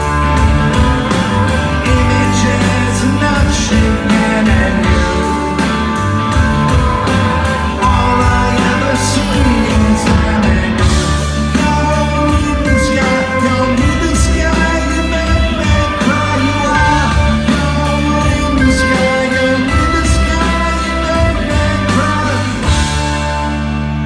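Rock band playing live: electric guitars over bass, drums and keyboard, at a steady loud level.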